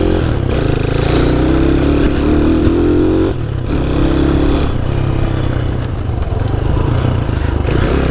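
Honda C90 motorcycle's small single-cylinder four-stroke engine running under way, its pitch rising and falling with the throttle. It drops off briefly about three and a half seconds in, then picks up again.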